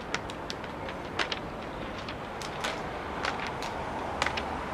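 Railway station background noise: a steady noise with irregular sharp clicks scattered through it.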